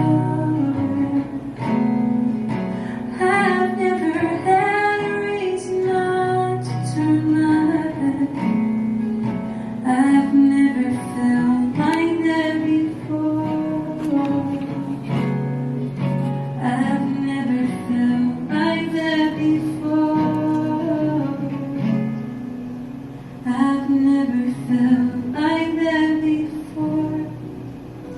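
A woman singing a song to guitar accompaniment; the music quietens near the end.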